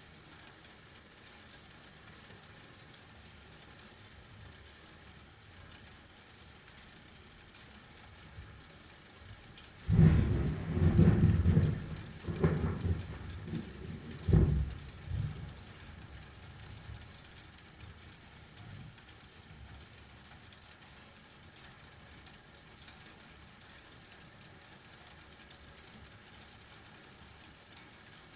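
Steady hiss of falling rain. About ten seconds in, a loud thunderclap breaks in and rolls on in several deep rumbles for about five seconds before fading back under the rain.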